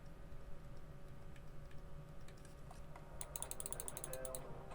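Quiet clicking of the buttons of a Bambu Lab 3D-printed wireless mouse kit: scattered soft clicks, then a fast run of clicks about three seconds in.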